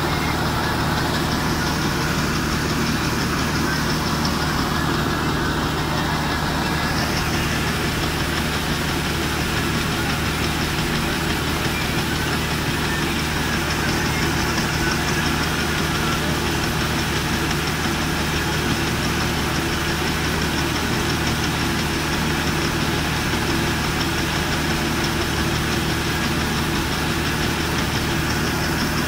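Claas 8060 combine harvester's engine running steadily at an even level, as a constant low drone with a rushing noise over it, while its unloading auger pours out harvested paddy.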